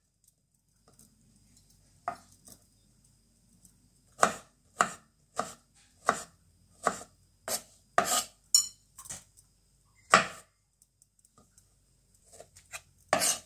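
A kitchen cleaver chopping strawberries on a wooden cutting board: a series of sharp knocks, one every half second or so through the middle, with gaps before and after.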